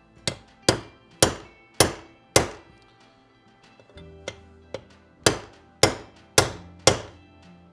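Hammer blows on a bearing driver, seating a bearing into a heated Triumph 650 aluminium crankcase. Five sharp metallic strikes come about half a second apart, then a short lull with two lighter taps, then four more strikes, each with a brief ring.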